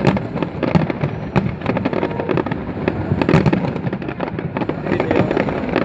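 Aerial fireworks display: a continuous barrage of booming bursts and crackling, many irregular bangs a second over a steady rumble.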